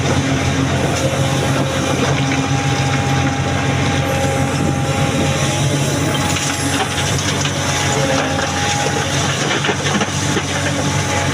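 Excavator's diesel engine running under load with a steady whine, and stones knocking and grinding as boulders are handled.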